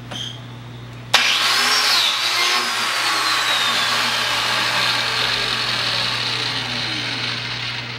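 Electric biscuit joiner switched on about a second in, its motor spinning up to a high whine that dips briefly as the blade cuts a half-moon biscuit slot in the edge of a cedar board. The whine then slowly falls in pitch and fades near the end as the motor winds down.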